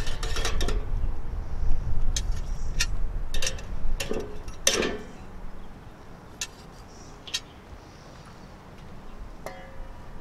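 Stainless steel tongs clinking and scraping against a kettle grill's metal cooking grate as thick ribeye steaks are flipped: a string of separate clinks through the first seven seconds or so, over a low rumble in the first half, then quieter.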